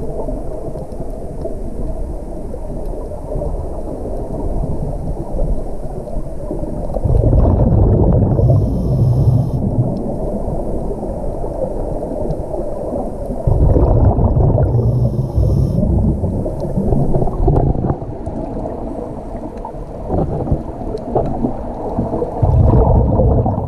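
Scuba diver breathing through a regulator underwater: exhaled air bubbles out in low, bubbling rumbles. There are three long, louder bursts a few seconds apart, with quieter stretches between.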